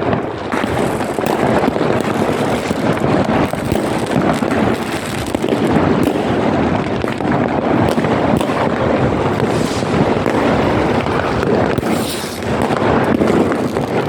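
Many fireworks and firecrackers going off at once: a continuous din of overlapping bangs and crackles with no break.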